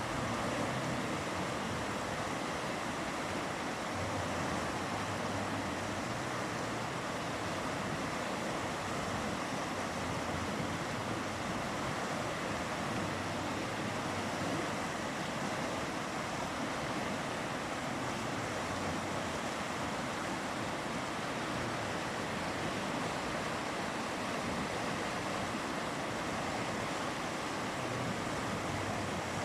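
River water flowing steadily: a continuous, even rush with no breaks.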